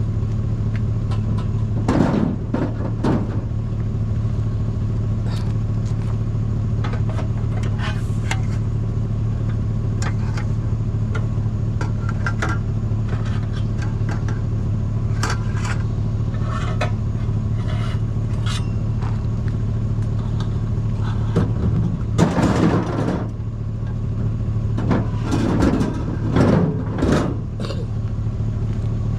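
Steady engine and road drone of a vehicle being driven, heard from inside the cab, with scattered clicks and clinks of loose items rattling. A few louder rattles come about two seconds in and again near the end.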